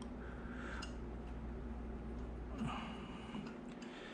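Faint rasping of a 1/8-inch NPT pipe tap cutting threads into an aluminium cylinder head, heard as two soft rasps over a steady low hum.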